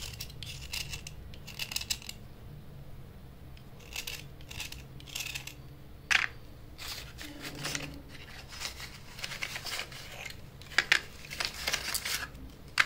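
Kitchen knife scraping the outer layer off wetted slate pencils: short, irregular scraping strokes, with a sharper scrape about six seconds in and a quick run of strokes near the end.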